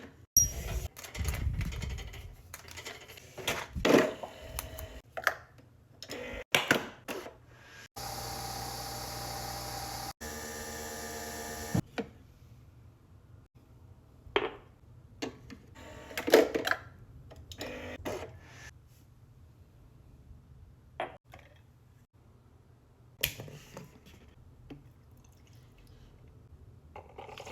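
Kitchen handling sounds: scattered knocks and clicks of cups and appliances being set down and worked. About a third of the way in, a small appliance motor runs with a steady hum for about four seconds, then stops.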